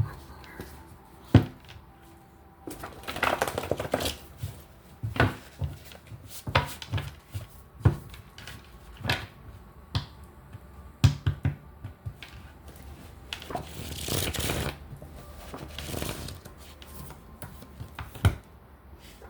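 A deck of oracle cards being shuffled and handled, with irregular sharp taps and snaps of cards and a couple of longer swishing riffles.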